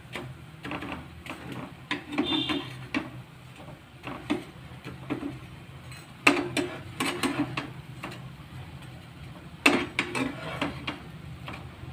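A spatula knocking and scraping against a nonstick frying pan while bread slices frying in ghee are turned, with sharper clanks about six and ten seconds in.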